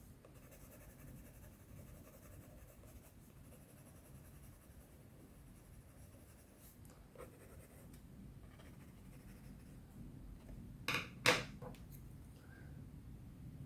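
Coloured pencil scratching lightly across sketchbook paper as it draws. Near the end, two sharp clicks in quick succession are the loudest sounds.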